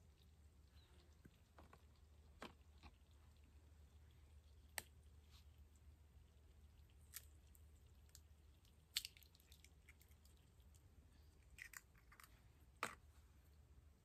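Near silence broken by about half a dozen small, sharp clicks and taps from hands handling cooking things (a bottle, the frying pan) at a small campfire.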